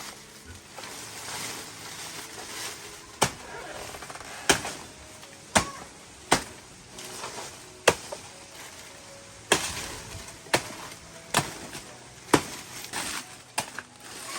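A blade chopping into wood: about eleven sharp, uneven blows, roughly one a second, starting about three seconds in, as a small tree is cut down.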